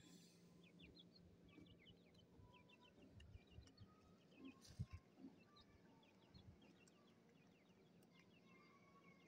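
Grey francolin chicks peeping: faint, short, high cheeps repeated several times a second, with a few soft low thumps around the middle.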